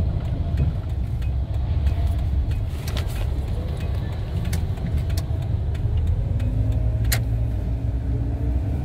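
Pickup truck driving, heard from inside the cab: a steady low rumble of engine and road noise, with a few light clicks and rattles scattered through it.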